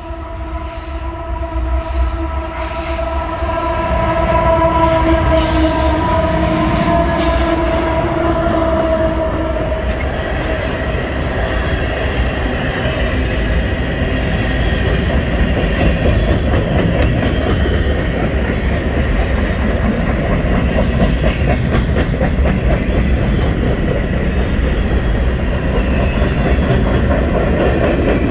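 Freight train passing close: a locomotive horn sounds one long steady blast for about the first nine seconds, then the loaded boxcars keep rolling by with a steady rumble and clatter of wheels on rail.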